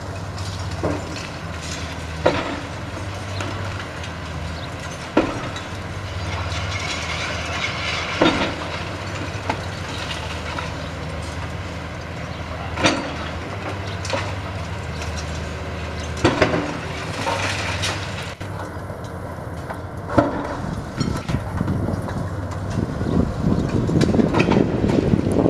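Hydraulic excavator with a demolition crusher jaw breaking up a reinforced-concrete building frame: the engine hums steadily under sharp cracks and bangs of concrete and metal giving way every few seconds. Near the end the noise swells into a longer, rough crashing.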